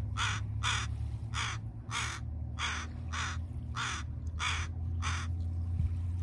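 A crow cawing about ten times in quick succession, roughly two caws a second, then stopping about five seconds in: scolding the dog foraging among the crows. A steady low rumble runs underneath.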